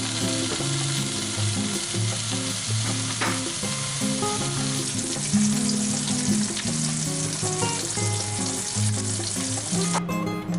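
Food sizzling in a hot frying pan, a steady hiss that cuts off suddenly near the end, with background music underneath.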